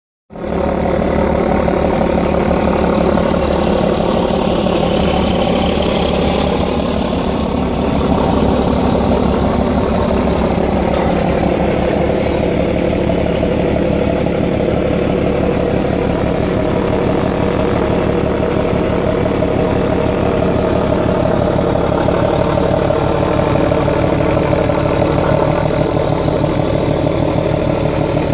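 Passenger ship's engines running steadily, an even, unbroken hum.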